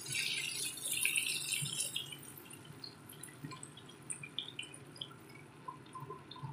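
Whole pomfret shallow-frying in hot oil, sizzling and crackling. The dense sizzle thins out about two seconds in, leaving scattered pops and crackles.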